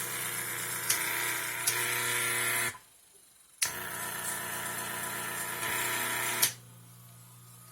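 Electric fan motor running with a loud buzzing noise that comes and goes: it cuts out for about a second, comes back with a click, then stops with a click near the end, leaving a quieter steady hum. The owner puts the loud noise down to the motor's bushing.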